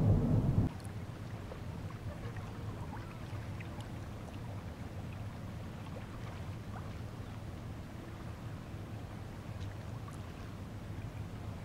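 Small waves lapping and splashing around a kayak, with scattered faint drips and ticks over a steady low rumble. A louder low rumble cuts off sharply under a second in.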